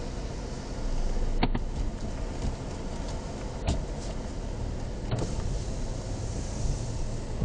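Cabin noise of an SUV driving slowly across wet pavement: a steady low rumble of engine and tyres, with a few light clicks.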